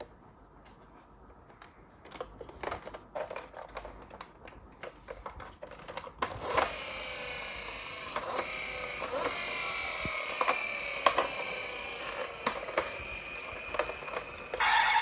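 Light plastic clicks and taps as toy ambulance minicars are handled. From about six seconds in, a steady toy sound with several high tones starts, drifting slowly lower, with the taps carrying on over it. A brighter, louder tone cuts in near the end.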